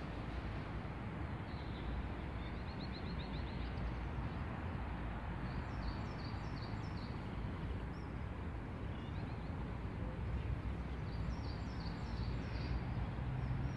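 Outdoor park ambience: a steady low rumble, with birds chirping over it. A quick run of chirps comes about three seconds in, then short series of high chirps around six seconds and again near the end.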